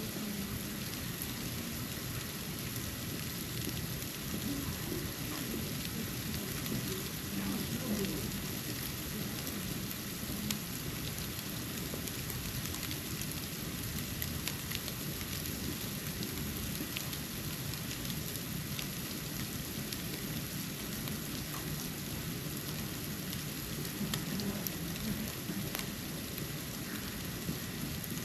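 Snow falling, a steady fine hiss with scattered faint ticks, over a low steady rumble.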